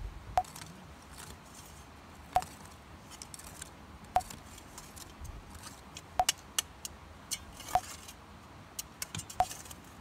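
A metal digging tool striking stones in the garden soil: sharp clinks with a short ring, about every two seconds, with several quicker taps near the end.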